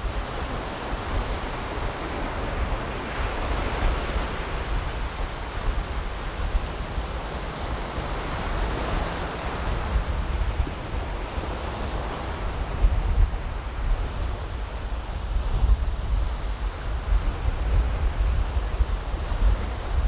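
Surf washing onto the beach, rising and falling as waves come in, with wind buffeting the microphone.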